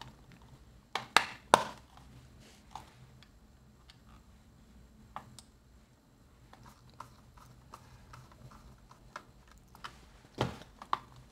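Plastic back cover of a Tecsun 2P3 radio kit being pressed onto its case. Three sharp clicks come about a second in, then faint handling taps, and another pair of clicks near the end.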